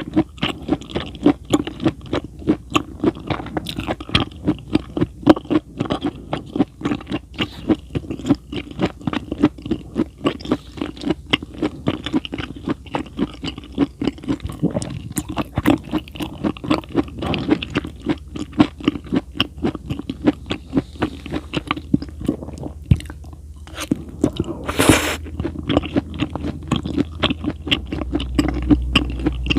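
Close-miked chewing of raw food, dense wet crunching with many bites a second. It stops briefly about three-quarters through, and a short, louder scraping noise follows.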